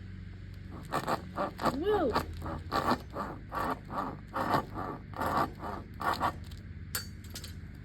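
A saw cutting into a soccer ball, rasping back-and-forth strokes at about three a second that stop about six seconds in.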